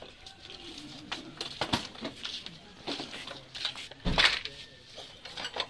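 Scattered light metallic clinks and knocks from the motorcycle and tools being handled, with one louder thump about four seconds in.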